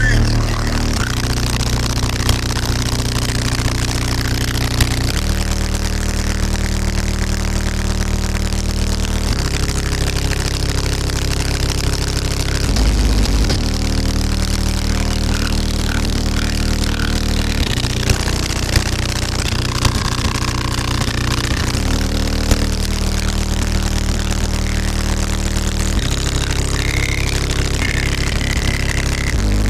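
Bass-heavy music played loud through two HDD subwoofers driven by an Ampere 3800.1 amplifier, heard from inside the vehicle's cabin; deep bass notes hold and change pitch every few seconds.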